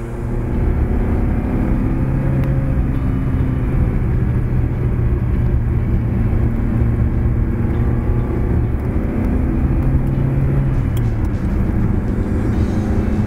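Ferrari 308 GTB's 2.9-litre V8 pulling the car along at fairly steady revs, under a continuous low rush of road and wind noise.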